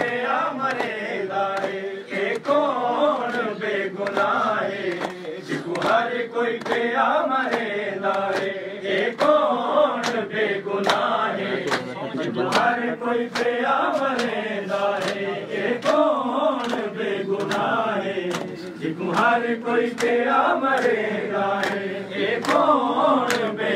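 A group of men chanting a mourning noha together. Sharp slaps of hands on bare chests (matam) keep time, about one or two a second.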